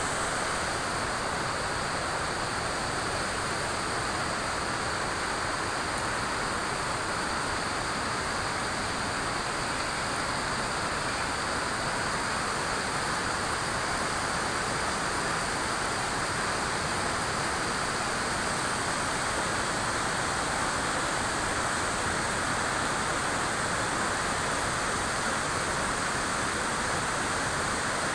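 Steady rush of flowing river water: an even, continuous noise that does not rise or fall.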